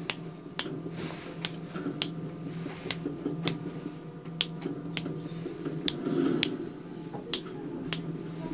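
A series of sharp, irregularly spaced clicks, roughly one or two a second, over a low steady hum.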